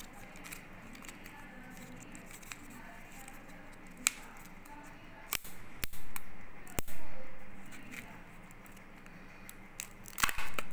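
Plastic Kinder Joy egg being handled: a few sharp plastic clicks and cracks, loudest about six to seven seconds in, then a quick run of loud crackling near the end as the egg's foil seal is pulled back.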